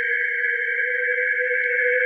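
Eerie horror-effect drone: a steady, unchanging electronic tone with a high airy whine held over a lower hum, with no pulses or breaks.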